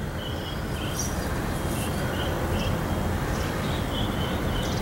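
Outdoor ambience: a steady low rumble like wind or distant traffic, with short high chirps repeating irregularly several times a second.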